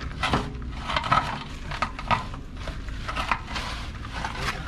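A few sharp knocks and clatter, roughly a second apart, over a steady low rumble.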